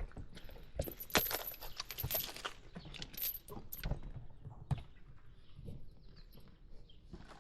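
Light metallic jingling and clinking with scattered sharp knocks, densest a second or two in, as small metal objects are handled.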